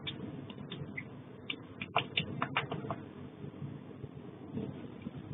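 Scattered sharp clicks and ticks, most of them between about one and a half and three seconds in, over a low steady rumble, heard through a security camera's microphone: spattered molten bronze settling and cooling on damp concrete just after a steam explosion.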